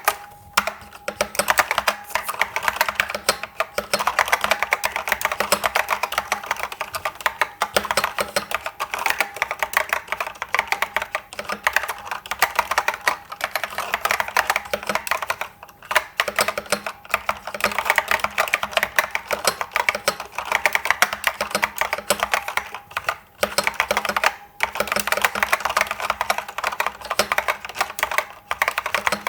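Steady fast typing on an IBM 6112884 keyboard with SKCC green Alps switches: a dense stream of key clicks and bottom-outs, with a few short pauses about 16 and 23 to 25 seconds in.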